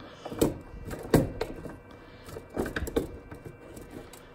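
Plastic filament spool being slid onto and seated on its holder inside a 3D printer: several separate knocks and clicks of handling, the loudest a little past a second in, and a quick cluster of them near three seconds.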